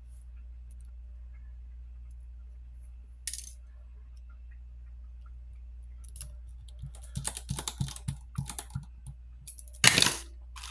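Small clicks and taps of tools and phone parts being handled on a hard work surface during phone reassembly. Near the end comes a sharp, loud clatter of something hitting the bench.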